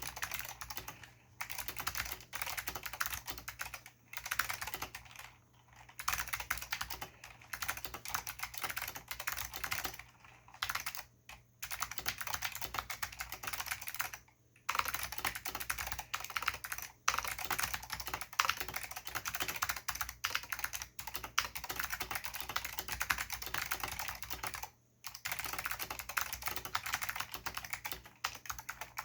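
Continuous fast typing on a mechanical keyboard with Alps SKCM White switches lubed with dry lube, a rapid stream of clicky keystrokes, with several short pauses.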